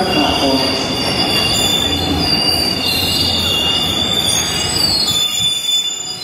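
Glasgow Subway train pulling into the platform and slowing, its wheels squealing in several high tones that waver in pitch over a low rumble.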